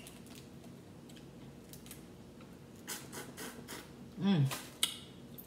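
Crawfish shells being cracked and peeled by hand: scattered small clicks, then a run of crackling snaps about three seconds in and one sharper snap near the end. A brief voiced 'mm' with a sliding pitch sounds just before that last snap.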